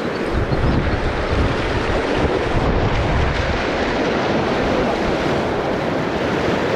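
Rushing whitewater rapids: a steady, dense churning of fast river water. Wind buffets the microphone for the first few seconds.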